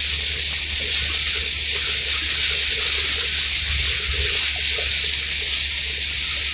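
Heavy rain pouring down on a vehicle, heard from inside the cab as a steady, loud hiss with a low road rumble underneath.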